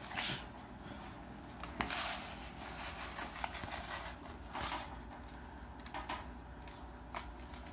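A few short rustling and scraping handling noises, spaced a second or more apart, over a low steady background hum.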